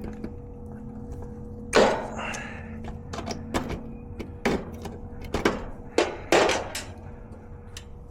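A loud thunk about two seconds in, followed by a string of knocks and clatters, over a steady electrical hum.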